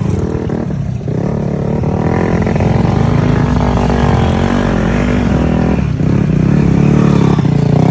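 Motorcycle engine running under throttle, its pitch rising and falling as the rider works the throttle, with short dips about a second in and again near six seconds.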